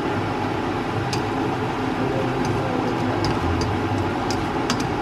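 Garlic sizzling in hot cooking oil in a frying pan, a steady sizzle with scattered pops and crackles.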